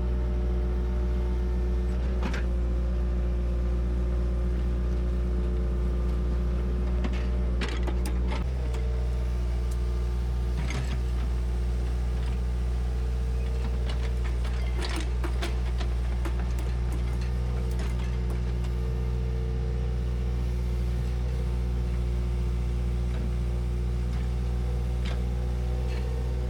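A heavy earthmoving machine's diesel engine running steadily under work, with scattered metallic clanks and knocks from its tracks and bucket or blade.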